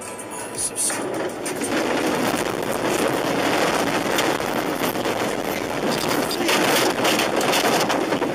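A car running off the road into the grass verge, heard from inside the cabin: a loud, rough rushing and rumbling that builds from about a second in as the car ploughs through grass and earth. Water and dirt spray over the windscreen.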